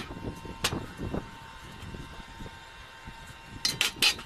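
Steel pieces (a square tube and a shovel's D-handle grip) being handled and set down on a steel welding table, clanking: a few scattered knocks, then a quick run of sharper knocks near the end.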